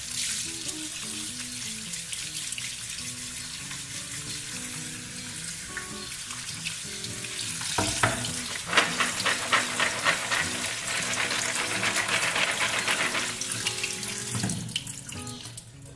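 Kitchen tap running water onto soaked chickpeas in a plastic colander, rinsing them after the soaking water is drained. From about halfway the splashing gets louder and more uneven as the colander is handled under the stream.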